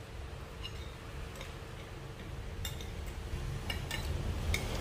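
Metal cutlery clinking against a plate about half a dozen times at uneven intervals, each a short sharp tick with a brief high ring, over a steady low background rumble.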